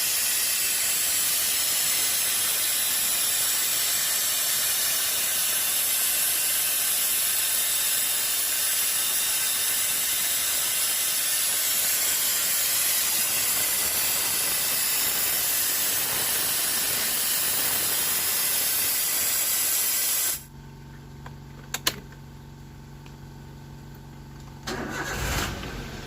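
Aerosol carbon cleaner spraying with a loud steady hiss for about twenty seconds, then cutting off suddenly. A Toyota Avanza engine is then heard idling steadily, with a sharp click soon after and a brief louder burst near the end.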